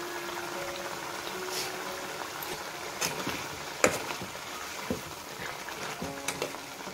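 Egg curry gravy simmering and bubbling in a metal wok, with a metal spatula stirring and knocking against the pan a few times from about three seconds in. The loudest knock comes near four seconds in.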